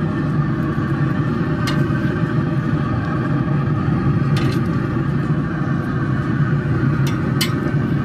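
Pit Boss 700FB wood pellet grill running, with a loud steady low hum from its fan. A few sharp metallic clicks come from tongs knocking the steel grates as the corn is lifted off.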